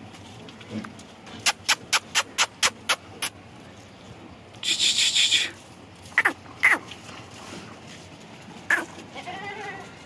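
Goats in a pen: a quick run of sharp clicks, about four a second, then a brief hiss, and a few short calls falling in pitch. A faint bleat comes near the end.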